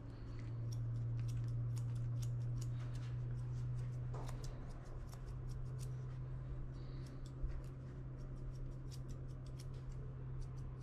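Grooming scissors snipping fur on a Shih Tzu puppy's paw in many quick, irregular clicks, over a steady low hum.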